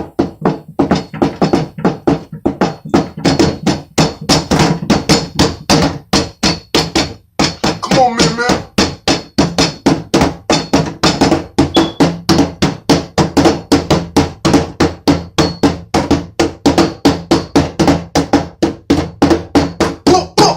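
Music with a fast, steady beat of drum hits, about four a second, over sustained pitched tones.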